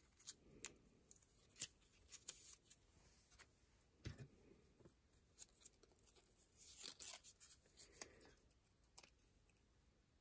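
Faint handling of a strip of glitter adhesive vinyl: small crinkles and clicks as the backing is peeled and the strip handled, a dull thump about four seconds in, and a brief rustle of peeling about seven seconds in.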